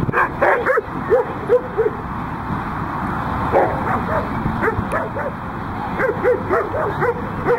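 A dog barking repeatedly in short, high barks, in quick runs of several at a time.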